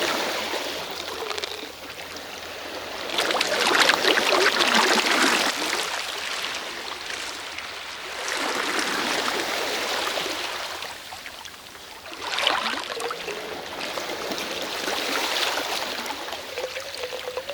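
Sea waves washing in and receding in repeated surges a few seconds apart, with water trickling and gurgling between them.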